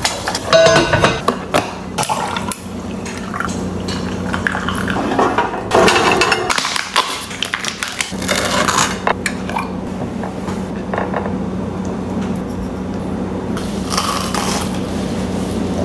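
Close-up kitchen and food sounds: eggs tapped and cracked into a frying pan in the first couple of seconds, then dishes and a plastic tub being handled, and a bite into toast near the end, all over a steady low hum.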